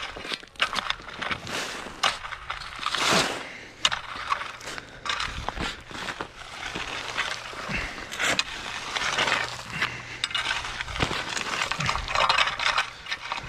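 A rake scraping and dragging through loose driveway gravel in irregular strokes, the stones crunching and clinking against each other and the tines.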